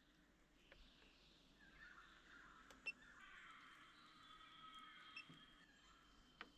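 Near silence, with faint, drawn-out high-pitched animal calls in the background and a small click about three seconds in.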